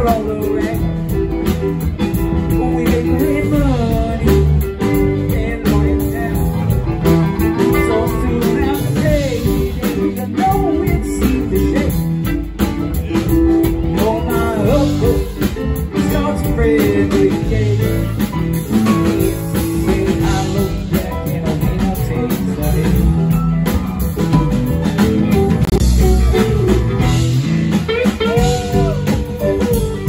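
Live rock band playing: a Telecaster-style electric guitar lead with bending notes over a drum kit and electric keyboard.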